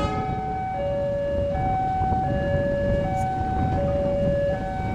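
Railway level-crossing warning alarm sounding a two-tone signal, alternating a low and a high note about every three quarters of a second, warning that a train is approaching. A steady low rumble runs underneath.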